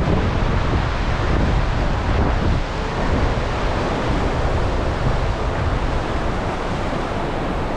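Steady roar of a large waterfall, mixed with wind buffeting the microphone as a gusty low rumble.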